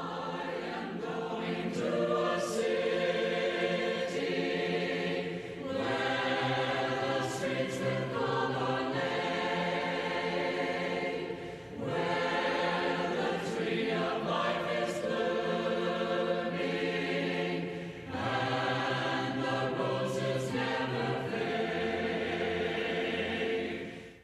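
A choir singing in long, held phrases of about six seconds each, with brief breaks between them, stopping near the end.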